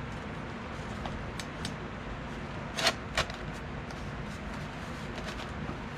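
Handling of a WWII entrenching tool and its canvas cover: two sharp clicks about a third of a second apart near the middle, with a few faint ticks, over a steady low hum.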